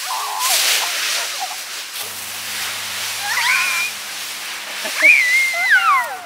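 A leaf rake sweeping dry leaves onto a pile, a crackly rustle for the first two seconds. Then a dog whining twice in high, wavering whines, the second rising and then sliding down near the end.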